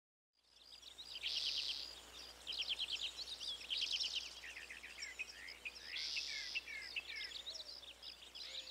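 Several songbirds singing in overlapping phrases of quick trills, chirps and short down-slurred whistles. The song starts about half a second in.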